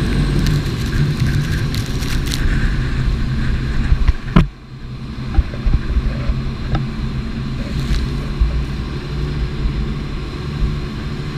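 Jet boat's engine running steadily under way, with rushing wind and water noise over it. A single sharp knock about four seconds in is followed by a brief dip in the sound.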